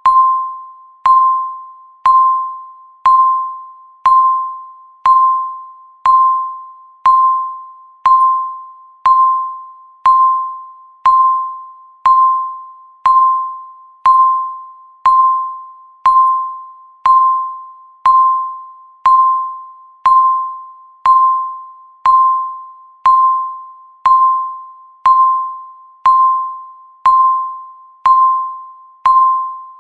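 Countdown timer beeping once a second: a sharp, bell-like tone at about 1 kHz that rings out and fades before the next beep.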